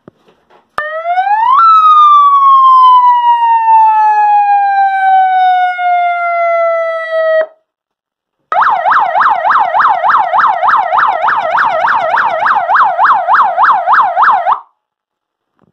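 Electronic police siren played through a flat and a cone 200-watt siren speaker wired together to one siren box. About a second in, a wail sweeps quickly up and then slowly falls for about six seconds before cutting off. After a second's pause, a fast yelp warbles up and down about three times a second for about six seconds.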